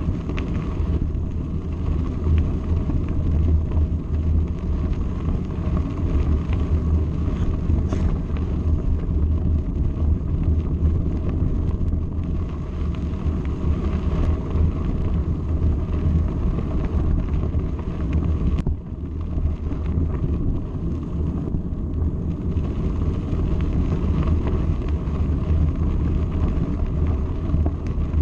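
Mountain bike rolling along a gravel track: wind buffeting the camera microphone and the tyres rumbling over loose stones, with a couple of brief knocks.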